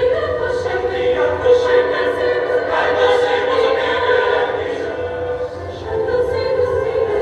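Mixed choir singing in harmony, holding long chords, with piano accompaniment.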